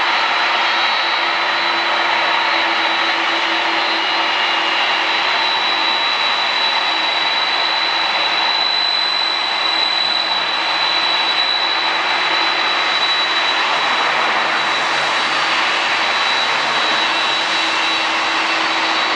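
Jet airliner engines running steadily: a loud, even rush of noise with a steady high-pitched whine over it.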